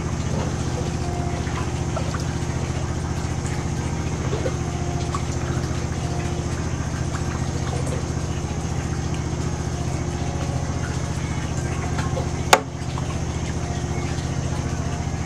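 A motor running steadily, a low even hum with a faint high whine above it, and one sharp click about twelve seconds in.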